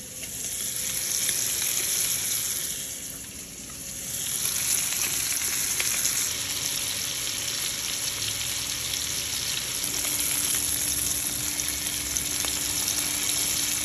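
Thresher shark steaks sizzling as they pan-sear in hot oil in a skillet, a steady frying hiss that eases briefly about three seconds in.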